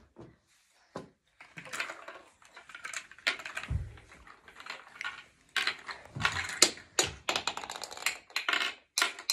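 Small plastic ice blocks of a penguin ice-breaking board game clicking and clattering as they are handled and pressed into the game's plastic frame, in quick runs of small clicks. A dull thump comes a little under four seconds in.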